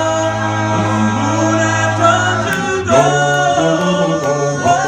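Male doo-wop group singing a cappella in close harmony, a bass voice holding a long low note under the chord before the harmony moves to new notes about three seconds in.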